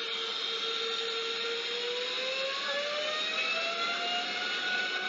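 Aeroplane engine sound effect: a steady engine hum whose pitch rises smoothly from about two seconds in.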